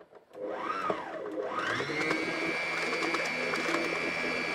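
Brother electric sewing machine's motor running the bobbin winder under the foot pedal. It gives a short spurt, then about a second and a half in it spins up to a steady high whine as the thread winds onto the bobbin.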